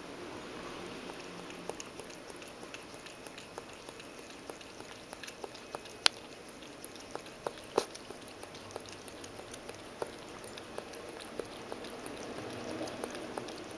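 Ragdoll cat lapping water from a stainless steel bowl of iced water: a quick, irregular run of small wet ticks and splashes, with a few sharper clicks about six and eight seconds in.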